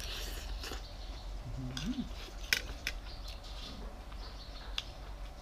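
Metal spoon and fork clinking and scraping against a ceramic plate of food in a few sharp taps, the loudest about two and a half seconds in. A brief rising hum of a voice comes just before it.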